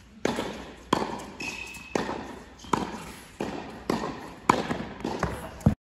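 Tennis balls struck by rackets and bouncing on an indoor hard court: about nine sharp pops, each with a short echo off the hall walls. A brief high squeak comes about one and a half seconds in, and the sound cuts off suddenly just before the end.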